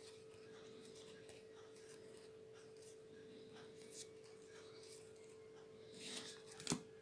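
Faint sliding and rubbing of Magic: The Gathering trading cards being moved by hand through a stack, a little louder near the end, over a faint steady hum.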